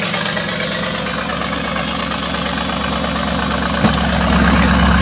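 Fuel-injected GM LS V8 idling steadily through a custom exhaust. A short knock comes about four seconds in, after which the low rumble is louder.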